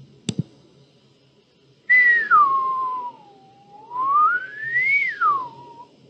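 A single mouse click, then a person whistling one continuous note. The note starts high, slides down low, climbs back up high and falls again near the end.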